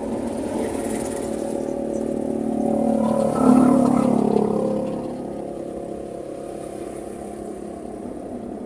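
Vehicle engine idling with a steady hum, growing louder for a couple of seconds around the middle before settling back.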